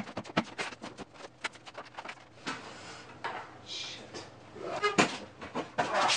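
Wooden shelf boards and frame pieces knocking and clattering as a pine shelving unit is taken apart by hand. The knocks come in a rapid, uneven run, with louder ones near the end.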